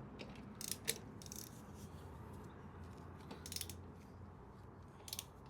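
A few faint, sharp metallic clicks and rattles from hand tools being handled, scattered over a low steady hum.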